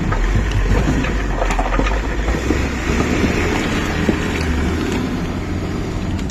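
Front loader's diesel engine running under load while its bucket digs into and lifts a load of coal lumps, with scattered clattering knocks of coal against the steel bucket and other lumps.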